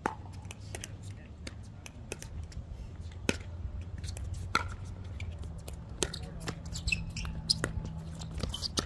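Pickleball rally: a hard plastic ball struck by paddles and bouncing on the court, sharp pops every second or so, over wind rumbling on the microphone.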